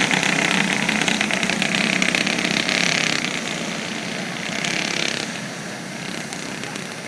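Alcohol-fuelled racing kart engines running around the track as a group, loudest for the first few seconds, then fading away after about five seconds as they move off.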